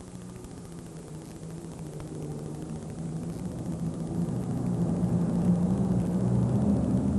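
Engine of a turbocharged John Deere super stock pulling tractor running hard under load on a pull, growing steadily louder.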